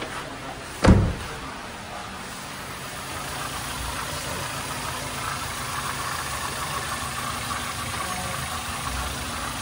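Freshly overhauled Toyota Avanza engine idling steadily without knocking, running in on new piston rings and new connecting-rod and main bearings. A single sharp thump about a second in.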